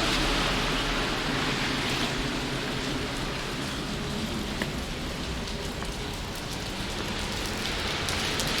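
Steady rain falling and spattering on surfaces, a continuous even hiss of heavy rain.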